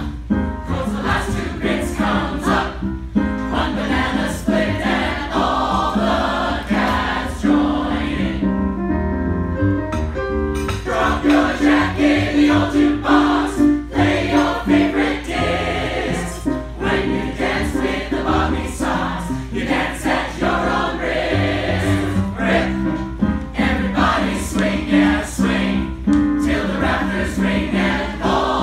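A small ensemble of singers singing an upbeat song together in chorus over an accompaniment with a steady beat.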